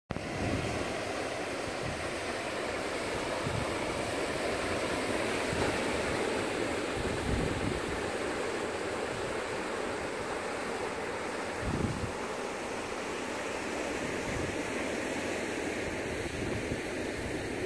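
Ocean surf breaking and washing over a rocky shore, a steady rushing wash. Wind buffets the microphone now and then in short low thumps, the strongest about twelve seconds in.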